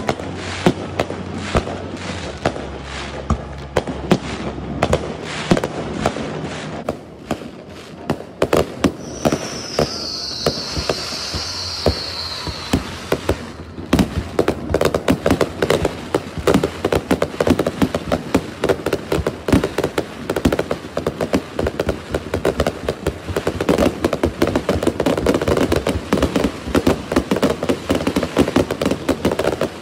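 Aerial fireworks going off: a rapid run of bangs and crackling, with a high hiss lasting a few seconds about nine seconds in. The crackling grows denser and louder through the second half.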